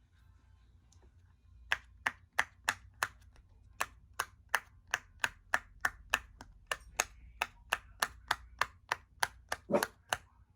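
Silicone Pop-It fidget toy having its bubbles pressed through one after another: a long series of sharp pops, about three a second, starting a couple of seconds in.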